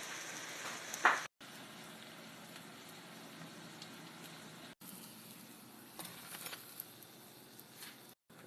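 Eggplant (baingan) frying in hot oil, with a steady sizzle. A single loud sharp clatter sounds about a second in, a few lighter clicks follow later on, and the sizzle drops out for two short silent gaps.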